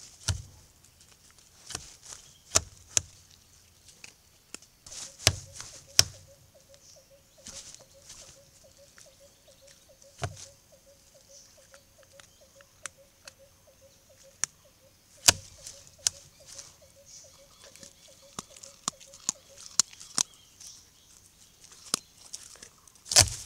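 Sharp knocks, taps and scrapes on and around a camera trap, from Sumatran dholes nosing at the camera and moving through the leaf litter in front of it. They are scattered and irregular, with the loudest knock near the end. A steady high-pitched insect drone sits underneath, and a faint, rapidly pulsing call runs through the middle stretch.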